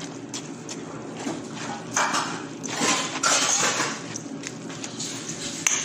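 Spoon stirring a mixture of raw rice, ground beef and tomato sauce in a metal bowl: wet scraping and clinking against the bowl, with two louder scraping passes a little after two and three seconds in.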